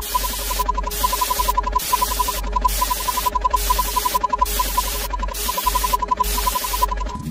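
Rapid electronic counting beeps, all at one pitch and about eight to ten a second, in runs broken by short gaps about once a second. Loud hissing static stops and starts with the runs, and a low hum runs underneath.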